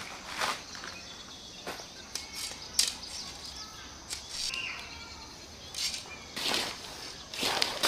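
Sections of a shock-corded metal tent pole clacking and snapping together as the pole is unfolded, several sharp clacks spread through. Birds chirp faintly in the background about halfway through.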